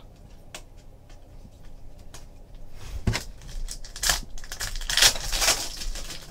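Light clicks and taps of trading cards being handled, then a thump about three seconds in, followed by several loud crinkling bursts from the foil wrapper of a Panini Prizm card pack being torn open and handled.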